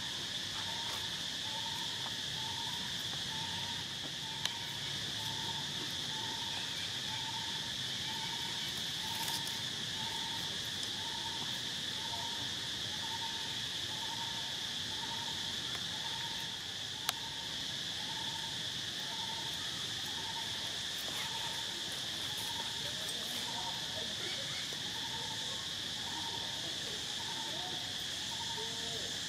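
Steady, unbroken high-pitched insect drone, with a short note repeating about once a second beneath it. Two single faint clicks sound during it.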